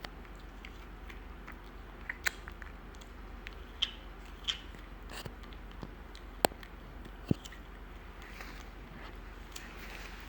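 Chewing and crunching: a handful of sharp crunches and clicks, the loudest about six and a half seconds in, over a steady low hum.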